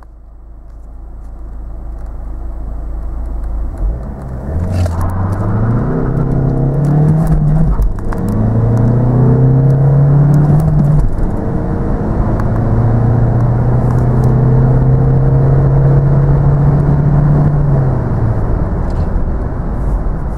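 2.0-litre Duratorq TDCi four-cylinder diesel of a Ford Mondeo accelerating hard from a standstill through its six-speed manual gearbox, heard from inside the cabin. After a few seconds of building rumble, the engine note climbs with two breaks for gear changes, then rises slowly in a long pull in a higher gear and drops near the end as the revs fall.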